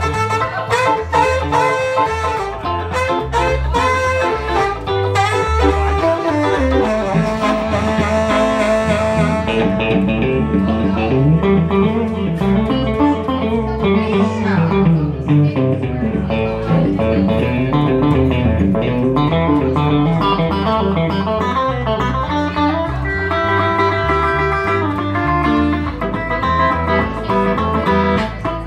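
Live blues-rock band playing an instrumental break: an electric guitar takes the lead with bending notes over electric bass.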